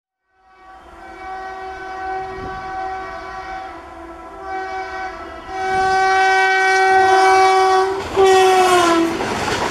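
Electric locomotive's horn sounding in three blasts, the last the longest, its pitch falling near the end, followed by the rush of the train going by.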